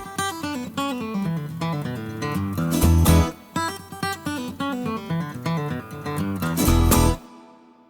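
Background music led by plucked guitar, with a stepping bass line and a beat, which cuts off near the end and fades out.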